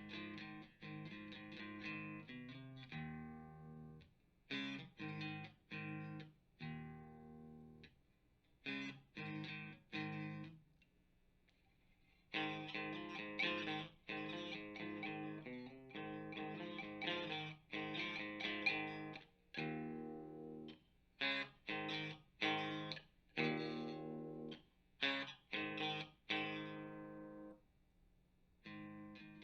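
Electric guitar played through an amp and speaker cabinet: chords and short phrases that ring and stop, with a couple of brief pauses between them.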